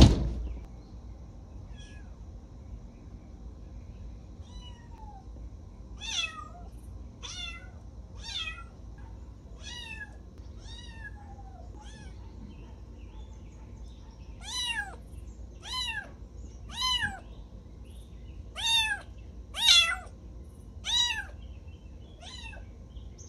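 A small kitten meowing over and over, about once a second, faint at first and much louder from about halfway on: the crying of a kitten left alone, which grows as its person goes away. A sharp knock at the very start.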